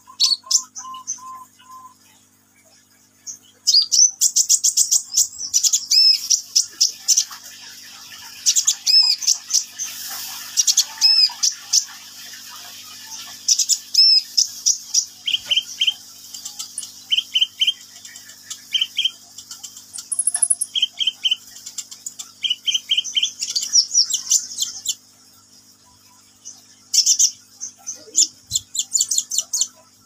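Male Van Hasselt's sunbird ('kolibri ninja') singing in a cage: long runs of rapid, high-pitched chirps and trills from about four seconds in, pausing about twenty-five seconds in, then one more short burst near the end. A faint steady low hum sits underneath.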